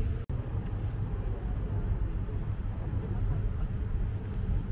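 Steady low rumble of a river tour boat's engine under way, with water and open-air noise over it. The sound drops out for an instant just after the start.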